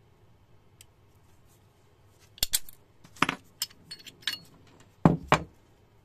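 Steel parts of a field-stripped CZ P-10 SC pistol being handled: a string of sharp metallic clicks and clinks, the loudest a pair of knocks about five seconds in as the barrel comes out of the slide.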